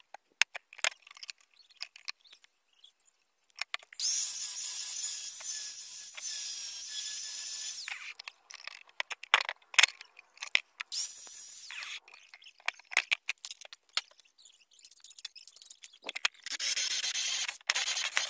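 Angle grinder with a diamond blade cutting into a stone block, running in steady stretches a few seconds long with pauses between. In the opening seconds there are only light scratches and taps of marking and handling the stone.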